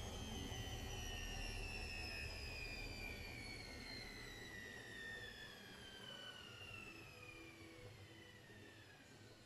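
Gorenje washing machine's drum spinning down after its spin: the motor's whine falls steadily in pitch and fades, and the low rumble dies away about halfway through.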